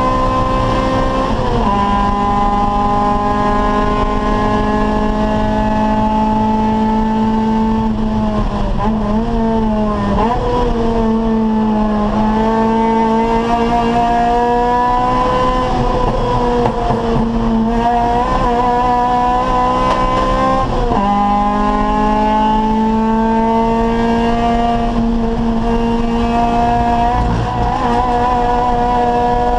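Acura Integra race car's four-cylinder VTEC engine held at high revs under full load, the note climbing slowly and dropping suddenly at an upshift about a second and a half in and again about two-thirds of the way through. In the middle stretch the note falls and wavers as the car brakes and downshifts for a corner.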